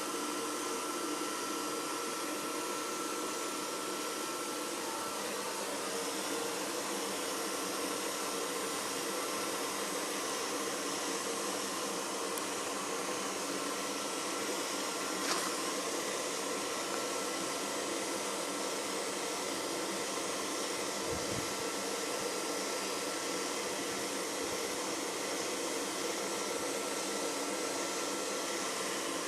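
Small electric blower fan running with a steady whir and a faint high whine; one click midway.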